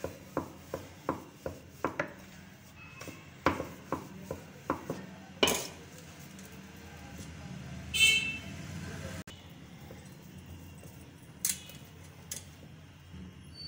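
Wooden rolling pin knocking in quick rhythm, about three clacks a second, on a wooden rolling board as paratha dough is rolled out, with a further run of knocks and single knocks later. About eight seconds in, a short honk-like tone is the loudest sound.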